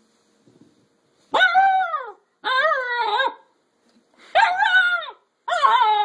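Alaskan Malamute puppy giving four drawn-out whining calls, each falling in pitch at its end, at a smoked bone it is wary of.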